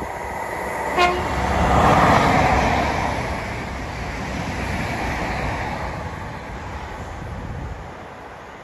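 Passenger train passing at speed, sounding one very short horn toot about a second in; the rush of the train swells to its loudest a second later, then fades away.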